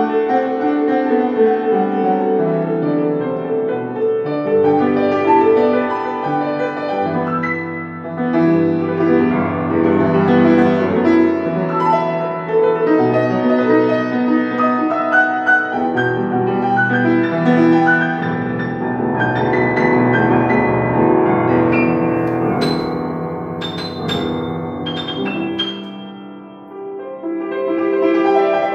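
Solo piano playing with sustained chords over a bass line that steps down in the first few seconds. About three quarters of the way through, a few bright high notes ring out, then the playing briefly dips in loudness before going on.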